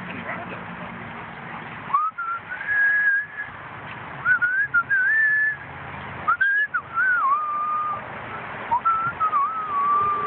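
A person whistling slow phrases of held, wavering notes with short breaks between them, starting about two seconds in.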